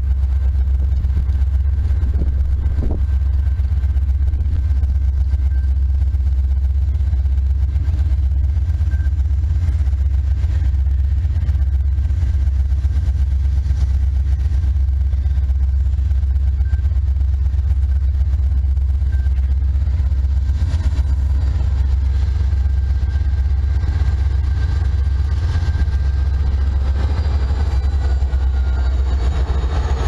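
Approaching diesel freight train led by a GE C40-9W locomotive, heard over a steady low rumble; the engine and wheel noise grows in the last few seconds as the locomotives draw near.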